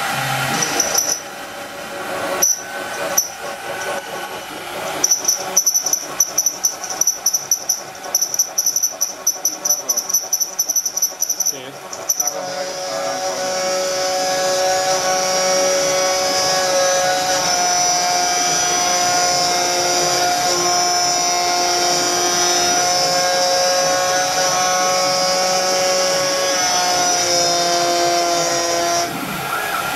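CNC router spindle milling a circular pocket in a metal plate with a small end mill. For about the first twelve seconds the cut comes in short stuttering bursts with a high whine. It then settles into a steady cut that sings with several sustained tones, which break off near the end.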